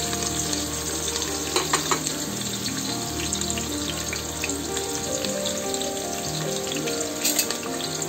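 Chopped onions, green chillies and curry leaves sizzling in hot oil in a pressure cooker, a steady frying hiss. Background music plays under it.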